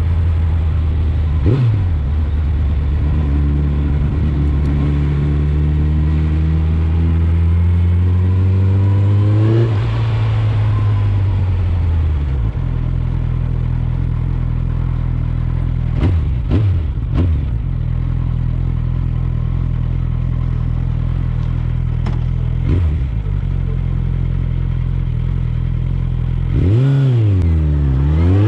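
Suzuki GSF 650 Bandit's inline-four engine through an Akrapovic exhaust, pulling hard with its pitch climbing for several seconds, then running at steady revs. Brief sharp dips in revs, typical of quick gear changes, come now and then, with a deeper dip and rise near the end.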